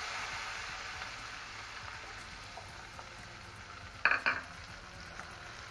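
Onion paste frying in hot oil with whole spices in a kadai: a steady sizzle that slowly dies down. About four seconds in, two sharp clinks of kitchenware ring out.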